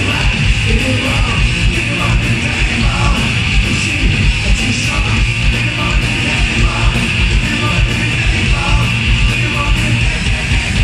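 Rock band playing loud live: distorted electric guitars, bass and drums.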